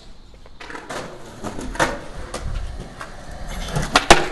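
Skateboard wheels rolling on concrete, then about four seconds in a few sharp clacks as the board's tail and wheels strike the ground during a trick attempt on a ledge.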